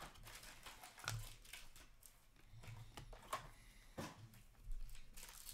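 Faint rustling and a few light taps of trading cards being handled, sleeved and set down on a table.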